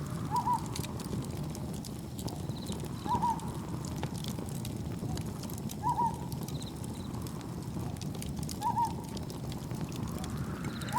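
Campfire crackling over a steady low rumble of wind and waves, while a short call of a few quick falling notes repeats about every three seconds, four times.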